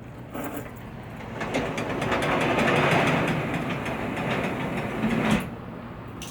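RetraxPro XR retractable aluminium-slatted tonneau cover being pulled closed along its bed rails: a rattling, clicking slide that builds over a few seconds and stops with a sharp knock about five seconds in.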